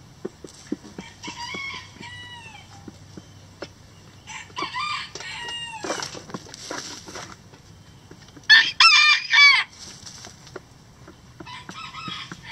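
Roosters crowing several times, the loudest and nearest crow in three quick syllables about two-thirds of the way through, over soft ticks of hens pecking and scratching in the dirt and straw.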